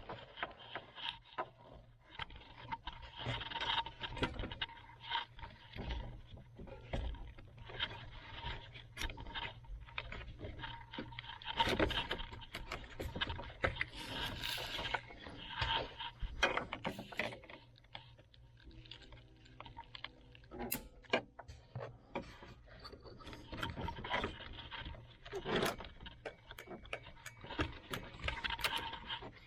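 Irregular plastic clicks, knocks and scraping of hands working a steering-column headlight/turn-signal combination switch loose.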